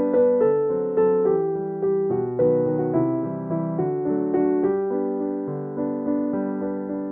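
Background piano music, with notes and chords struck about twice a second and left to fade.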